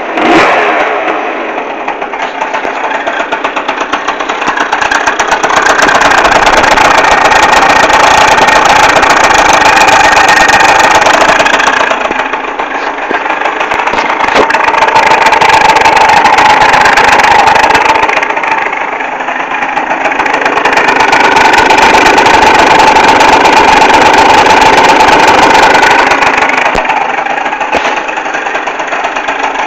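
Yamaha Neo's scooter's two-stroke engine, fitted with a 70 cc kit, idling and revved up twice, each rev held for several seconds. It carries an odd noise that the owner hears more from the exhaust side than from the kick-start side.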